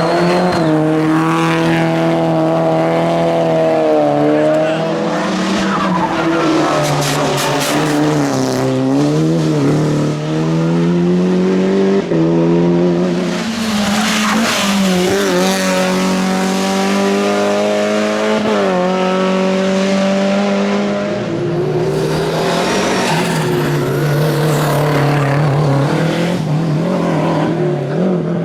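Hill-climb race car engines revving hard at full throttle. The pitch climbs and falls repeatedly with gear changes and lifts off the throttle.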